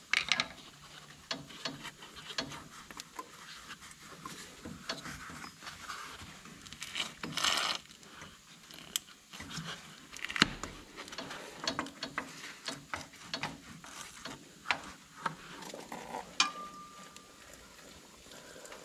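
Hand work on a skid steer's upper radiator hose: a screwdriver loosening the metal hose clamp and the rubber hose being worked off the radiator neck, giving irregular small clicks, taps and scrapes. A short rushing noise comes about seven seconds in, and a brief high squeak near the end.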